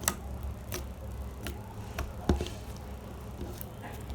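Homemade glue-and-borax slime being squeezed and stretched by hand, giving scattered small sticky clicks and pops, the loudest a little past two seconds in.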